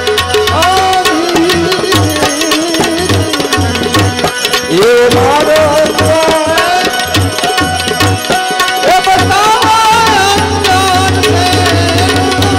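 Indian devotional music: tabla strokes keep a rhythm under a gliding melodic line, with no words sung. The drumming grows denser near the end.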